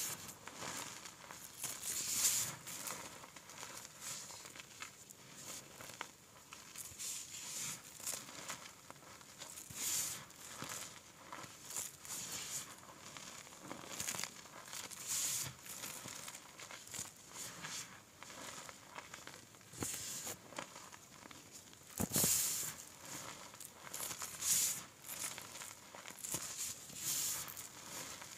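Hands scooping, squeezing and crushing a pile of powdered gym chalk with small chunks in it: soft, crackly crunching in irregular bursts, about one or two a second, with one sharper crunch about three-quarters of the way through.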